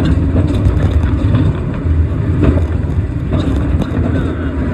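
Steel roller coaster car running along its track: a loud, steady rumble from the wheels, with rattling clatter throughout.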